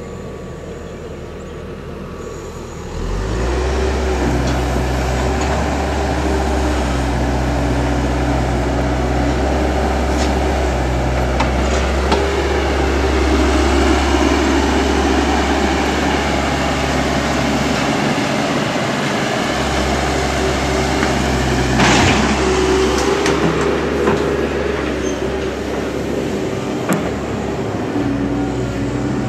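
Heavy diesel machinery running at a grading site: a tracked excavator working beside a dump truck, its engine note stepping up about three seconds in and staying steady. A single sharp knock comes about two-thirds of the way through.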